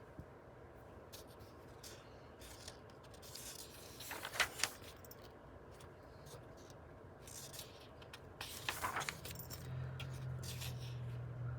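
Paper pages of a book being handled and turned, two brief rustles about four and nine seconds in with lighter ticks and scrapes between. A low steady hum sets in near the end.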